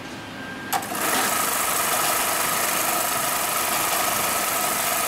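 HighTex 430HM high-speed automatic bar-tacking sewing machine running. A sharp click about three-quarters of a second in, then the machine sews at high speed with a steady, even high whine.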